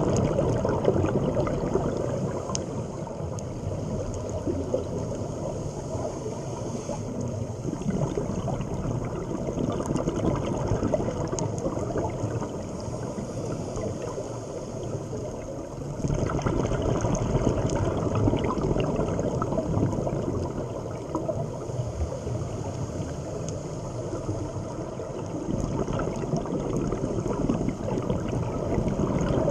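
Underwater bubbling and gurgling from scuba divers' exhaled air, muffled through the camera's housing. It swells and fades in slow waves, with faint scattered clicks.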